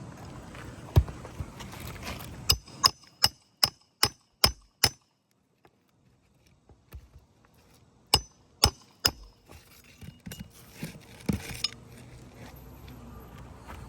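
A series of sharp clicking taps with a light ring: a single tap, then a run of seven evenly spaced ones at about two or three a second, a pause, and a few more.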